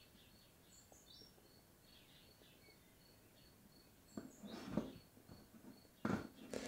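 Faint outdoor background of a cricket or bird repeating short high chirps, about three a second, with a few higher bird chirps in the first second or so. Two louder soft noises come after about four seconds and again at about six seconds.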